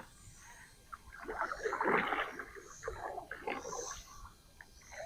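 Water swishing and splashing around a kayak, in a few uneven surges.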